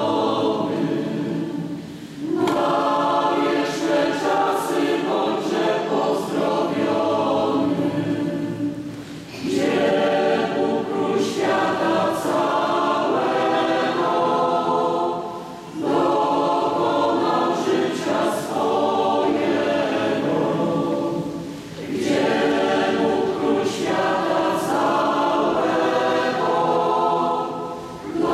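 Mixed choir of women's and men's voices singing a Polish hymn unaccompanied. The singing comes in phrases of about six seconds, with a brief breath between each.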